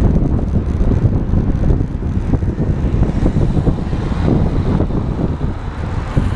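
Wind buffeting the microphone of a camera on a moving road bike's handlebars: a loud, uneven low rumble.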